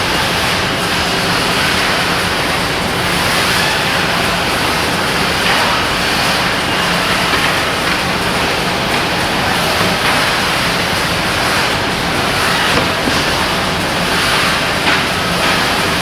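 Steady, loud mechanical noise with a low hum underneath, like running machinery.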